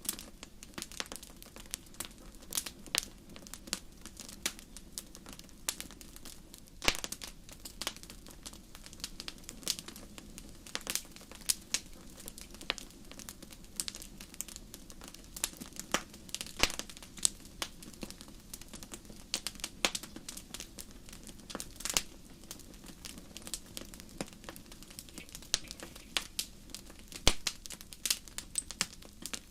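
Fire crackling, with irregular sharp pops and snaps, some louder than others, over a soft steady low rumble.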